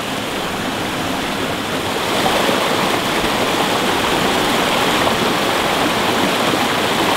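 Small rocky stream rushing over a little cascade into a pool: a steady rush of water, a little louder from about two seconds in.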